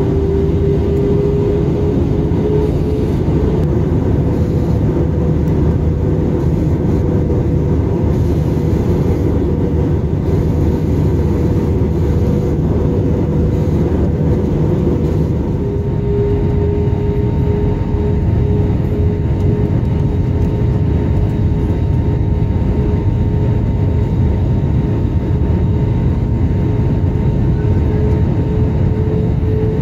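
Cabin noise inside an Airbus A320neo on approach: a steady roar of airflow and engines with a humming engine tone. The hum rises slightly in the first few seconds, drops a little about halfway through as the thrust changes, then creeps back up.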